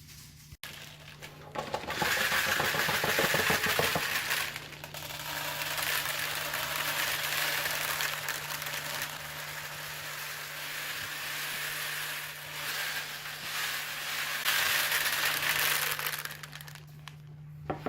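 A continuous clatter of many small, hard crackle-ball pellets being poured and rattling into plastic bottles, loudest near the start and again near the end, over a steady low electrical hum.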